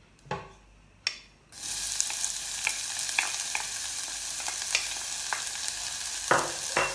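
Chopped shallots tipped into hot oil in a stainless steel saucepan: after two light knocks, the oil bursts into a sizzle about a second and a half in and keeps sizzling steadily with small spits and crackles. A wooden spoon stirs the shallots near the end.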